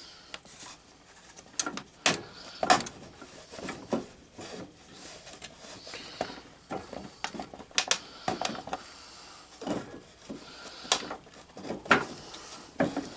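Irregular clicks, knocks and rubbing from hand work on a garden tractor's steering wheel and shaft as the wheel is positioned and worked onto the shaft. The sharpest knocks come at about three seconds and eight seconds in.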